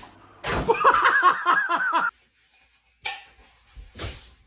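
A person laughing in a quick run of short, high-pitched 'ha' sounds that breaks off suddenly, followed by two short clicks or knocks.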